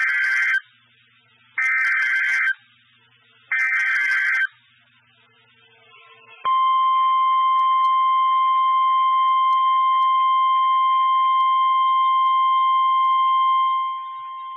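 Emergency alert data bursts: three short bursts of warbling digital tones about two seconds apart (the SAME header), followed by the steady single-pitch NOAA Weather Radio warning alarm tone held for about eight seconds, dropping in level near the end. The sequence announces the tornado warning that follows.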